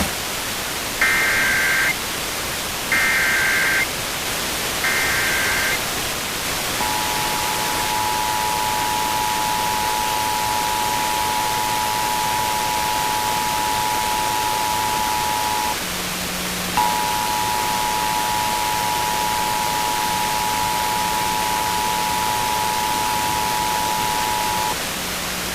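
Emergency Alert System test received over FM radio, with steady radio hiss throughout. It opens with three one-second bursts of the warbling SAME header data tones, then the two-tone EAS attention signal sounds for about nine seconds, breaks off briefly, and sounds again for about eight seconds. A low hum joins partway through.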